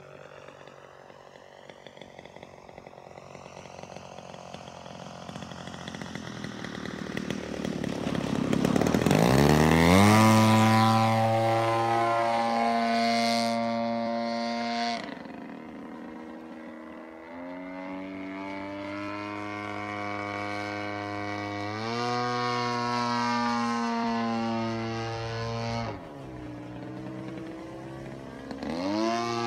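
Propeller plane's engine flying overhead. It starts faint and grows louder, rises sharply in pitch about nine seconds in, then runs at high revs. Its pitch and loudness drop suddenly and climb back a couple of times as it manoeuvres.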